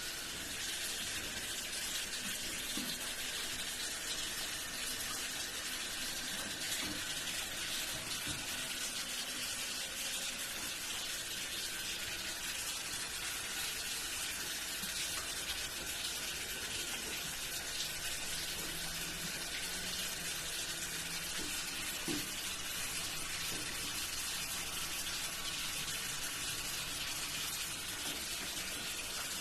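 Steady hiss of running water, with a few faint knocks.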